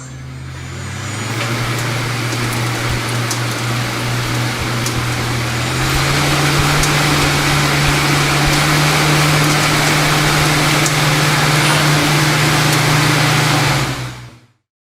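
CNC machine tool running a metal cut: a steady motor hum under a dense hiss with scattered clicks. The hum steps up in pitch about six seconds in, and the sound cuts off suddenly near the end.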